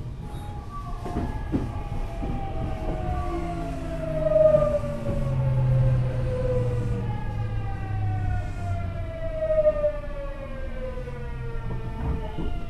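Whine from the Hitachi GTO-thyristor VVVF inverter and traction motors of a Tokyu 9000 series electric train under braking. The tone falls in two long downward glides as the train slows, over a low rumble of wheels on rail.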